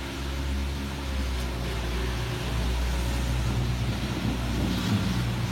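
Steady rain hiss over a low rumble, with a faint engine-like hum underneath.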